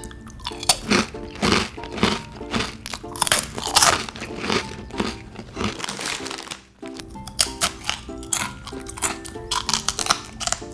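Crisp puffed snack balls crunching as they are bitten and chewed close to the microphone, over background music. Partway through, a snack packet crinkles as it is handled.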